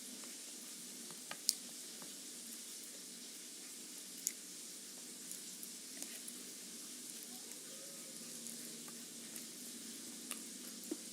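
Food sizzling steadily in hot oil in a frying pan, with a few sharp clicks, the loudest about one and a half seconds in.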